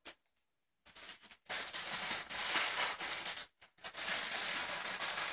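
Crinkling and rustling of a Hot Wheels mystery car's plastic package being torn open. It comes in two stretches of about two seconds each, with a short break between them.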